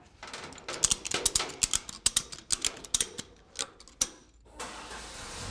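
Ratchet tie-down strap being cranked tight: a rapid, uneven run of sharp pawl clicks lasting about three seconds. A steady rushing noise comes up near the end.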